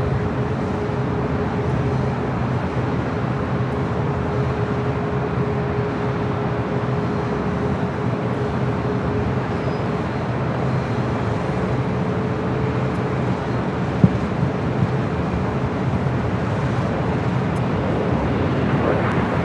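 Steady low rumble of an Airbus A380's jet engines as it climbs away after takeoff, over airport and street traffic noise. A thin steady tone in the rumble fades out about halfway through. There is a single brief knock about fourteen seconds in.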